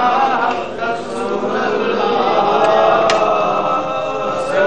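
Group of men chanting together in devotion, with long drawn-out notes, during the offering of a sheet and flowers at a Sufi shrine.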